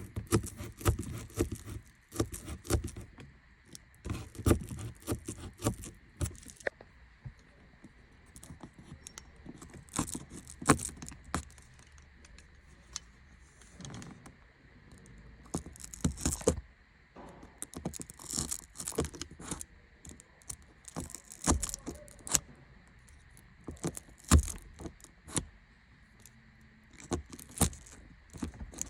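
Irregular clicks, rattles and scrapes of hands and tools working on car parts, coming in clusters with short pauses between.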